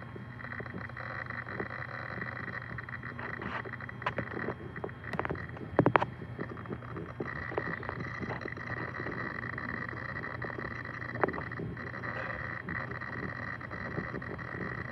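Laptop hard disk drive in an Asus S400CA running with a steady hum and whine, ticking with many small seek clicks and a few louder clicks about a third of the way in and again past the middle.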